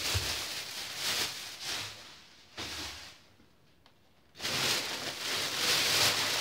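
Thin plastic grocery bags rustling and crinkling as they are handled, in several uneven bouts with a short quiet gap after the middle, loudest in the last two seconds.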